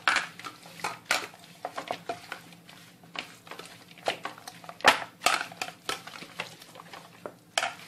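A hand rubbing spice paste and crushed garlic into a raw whole chicken in a plastic bowl, with irregular knocks and clatters as the chicken and hand bump the bowl; the loudest knock comes about five seconds in.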